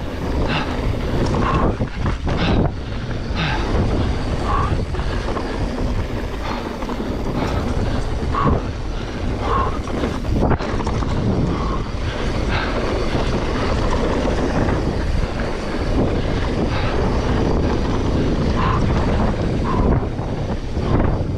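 Mountain bike riding over a dry dirt trail: tyres running on the dirt with a steady rumble, the bike rattling with short sharp knocks over bumps, and wind buffeting the microphone.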